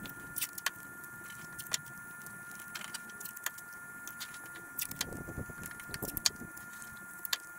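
Paper masking tape crackling and clicking as it is pressed and smoothed around a headlight lens by hand, in scattered short sharp bursts. A faint steady high whine runs underneath.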